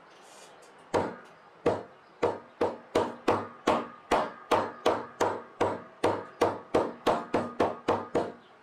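A white plastic mallet striking the folded edge of a leather sheath on a cutting mat, about twenty dull knocks. They begin about a second in, come at about three a second after the first few, and stop just before the end.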